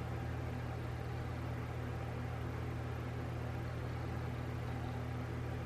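Steady low hum with a faint hiss underneath, even in level throughout, with no clicks or knocks.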